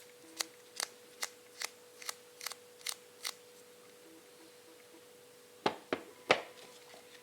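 Sharp light clicks, evenly spaced at about two and a half a second, stopping after about three seconds, then three louder taps in quick succession near the end, over a faint steady hum.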